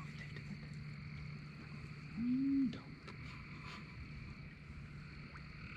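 One low bullfrog call, a single note about half a second long that rises and falls, a little over two seconds in. It sounds over a steady high-pitched night chorus.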